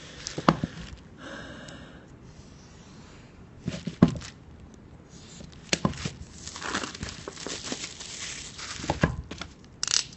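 Plastic wrapping being cut and peeled off a new iPhone box, crinkling and tearing, with several sharp clicks and taps as the box is handled.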